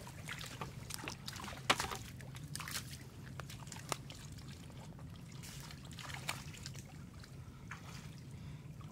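Small irregular splashes and trickles of shallow muddy water as hands pull catfish out of a net, busiest in the first few seconds and sparser after, over a low steady hum.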